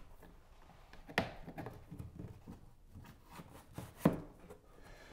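A rigid-core DumaWall wall tile being handled and pressed into its corner track against the wall: two sharp knocks, about a second in and again about four seconds in, with faint clicks and rubbing between.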